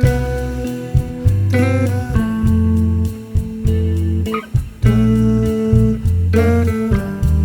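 Background music led by a plucked guitar over held bass notes.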